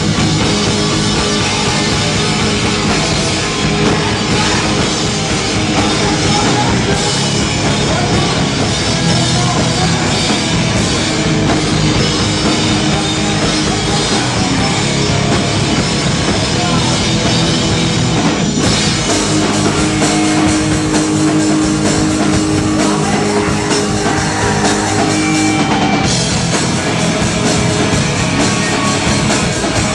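Hardcore punk band playing live, loud and continuous: electric guitars, bass and a drum kit.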